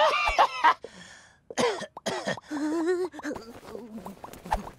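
Wordless cartoon character voices: a string of short grunts, huffs and babbling exclamations with swooping pitch, one after another.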